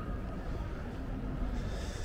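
Open-air town square ambience: a steady low rumble with faint, distant voices of passers-by, and a brief hiss near the end.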